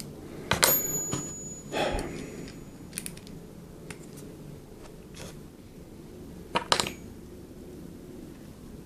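A series of sharp clicks and clacks of small hard objects being handled on a workbench, over a low, steady background.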